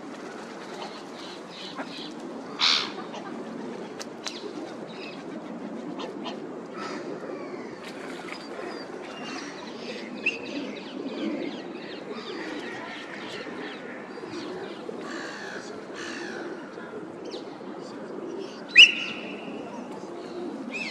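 Birds on the water calling: scattered short calls and chirps over a steady low background noise, with a louder sharp call held for about a second near the end.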